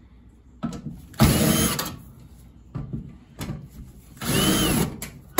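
Cordless drill/driver with a number two Phillips bit backing out two screws from the dryer's lint-screen opening: two short runs of the motor, each under a second, with a whine that rises and falls. Light clicks of handling between them.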